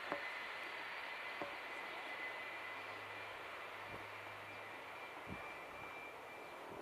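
Boeing 757-200's jet engines at low power as the airliner rolls slowly along the runway: a steady rushing hiss with a thin high whine, easing off slightly. A few short clicks are heard.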